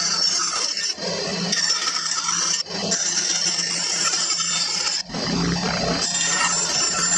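Scroll saw running, its reciprocating blade cutting through plywood with a steady hum and a rasping hiss, broken by a few short drops.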